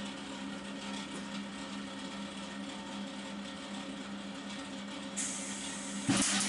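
A MIG welder, set up with shielding gas, hums steadily while the torch is positioned. About five seconds in a high hiss starts, and near the end the arc strikes with a loud, dense crackle of gas-shielded MIG welding.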